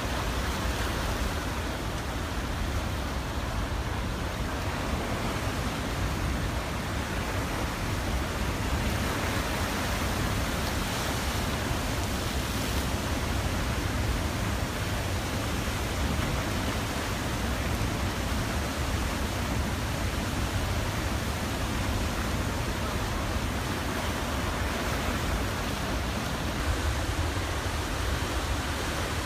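Floodwater from a dam release of about 7,800 cubic feet per second rushing and churning through the outlet channel below the dam: a steady, unbroken rushing noise, heaviest at the low end.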